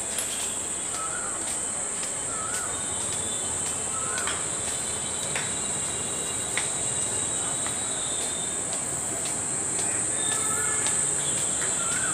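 A steady high-pitched insect drone runs throughout. Over it a bird repeats a short chirp about once every second and a half, with a few faint ticks of footsteps.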